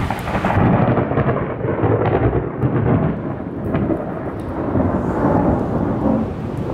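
Rolling thunder from a nearby lightning storm, rumbling deep and loud: it swells about half a second in, swells again around five seconds and then slowly dies down, with rain falling underneath.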